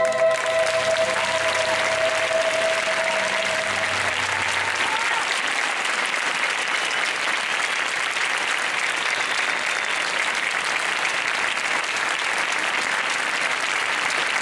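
Audience applauding a children's choir, steady clapping throughout. In the first few seconds the choir's final held note dies away under the applause.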